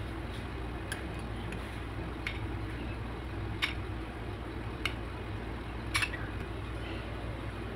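A metal spoon clinks lightly against glass bowls while soft curd-soaked dahi vadas are spooned out and served. There are five short, sharp clinks about a second apart over a faint steady low hum.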